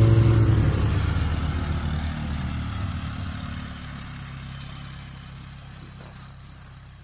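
An ATV's engine running at a steady pitch, its sound fading away evenly over several seconds.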